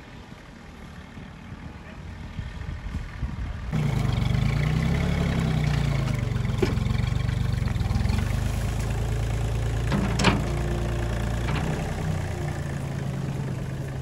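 Compact tractor with a front-end loader, its engine running faintly at first and growing louder, then heard close up running loudly, revving up and settling back just after the start of the close view as the loader bucket works the dirt. A couple of sharp knocks sound over the engine.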